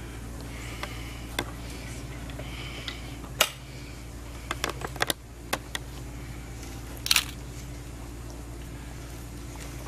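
A dozen or so sharp clicks and knocks over a steady low hum. The loudest come about a third of the way in, and as a bunched cluster about two-thirds through.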